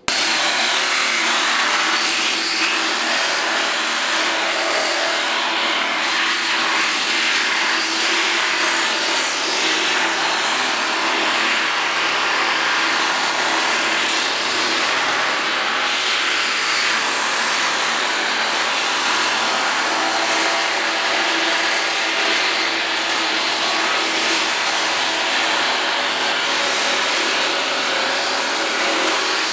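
Small pneumatic air hammer with a flat bit hammering continuously on a steel body panel, planishing out dents. It is a loud, steady, rapid buzz that starts suddenly and keeps an even level throughout.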